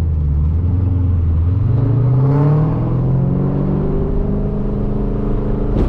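2003 Mustang SVT Cobra's supercharged 4.6-litre V8 accelerating, its note rising in pitch for about a second and then holding steady. A sharp knock near the end as the car hits a pothole.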